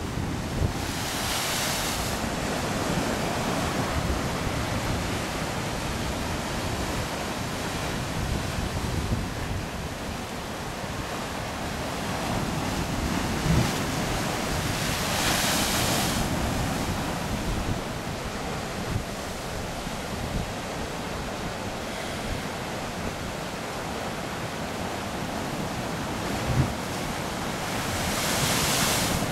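Pacific surf breaking and washing in over rock and shore, with wind rumbling on the microphone. Three louder surges of hissing white water stand out: about a second in, around the middle, and near the end.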